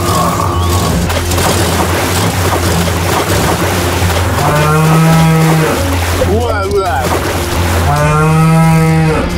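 A cow mooing twice, each moo about a second long, over a steady low drone.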